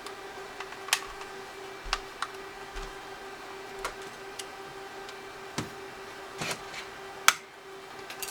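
Scattered clicks and taps of hard plastic as TI-83 Plus calculator parts are handled and fitted together, with a louder knock about seven seconds in, over a steady faint hum.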